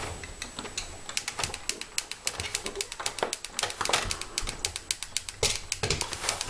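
Rapid, irregular clicking and tapping from a cat stuck halfway through a cat flap, the flap rattling as the cat wriggles.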